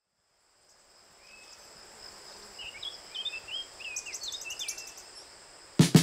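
Outdoor ambience fading in: small birds chirping in short rising and falling calls over a steady high-pitched insect drone. A sudden loud hit comes near the end.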